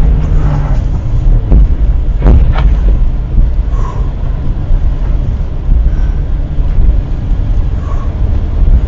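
Loud, low rumble of a running vehicle engine, with two sharp thuds in the first few seconds.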